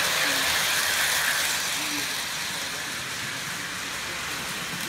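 Lionel electric model train running on its metal track, wheels and motor rumbling as it passes close by, then growing a little quieter as it moves away about two seconds in.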